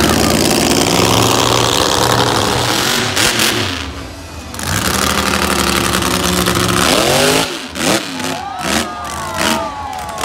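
Monster truck engine running loud and revving, then blipped hard several times in quick succession near the end, its pitch jumping up and down.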